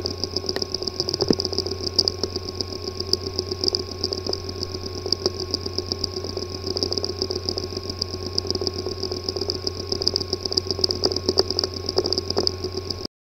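Hard drive with physically damaged disk assembly running: a steady hum and high whine with frequent irregular clicks and ticks, the failure sound of a drive that can no longer be read. It cuts off suddenly near the end.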